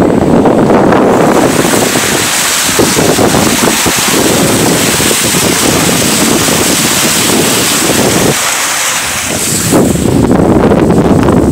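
Pickup truck plowing through a deep muddy pond: a loud, continuous rush of water splashing up over the hood. The rush eases briefly about eight seconds in, then gives way to loud wind buffeting the microphone as the truck drives on.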